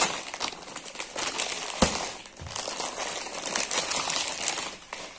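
Clear plastic packaging crinkling and rustling as a packed saree is handled and pulled out of its bag, with a single sharper knock a little under two seconds in.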